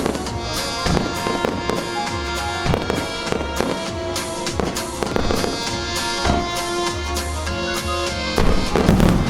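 Fireworks shells bursting in quick succession over music played on loudspeakers, with a denser, louder run of bursts near the end.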